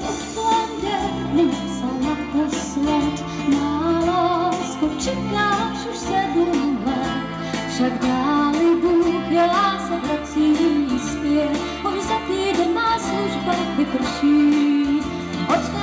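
Live folk-band music: a woman's voice carries a gliding melody over steady acoustic accompaniment.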